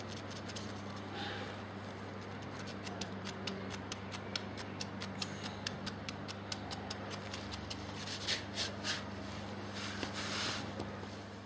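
A kitten playing on a carpet: irregular light clicks and scratches, growing busier and louder toward the end, with brief rustles about a second in and near the end, over a steady low hum.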